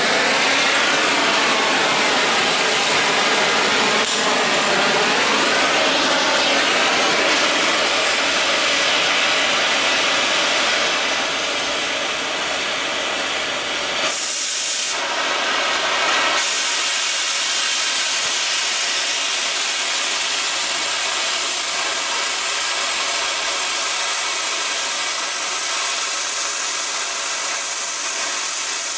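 Oxy-fuel cutting torch hissing steadily as it burns through steel plate. About halfway through it dips briefly, then hisses higher and harsher for a second or two before settling back.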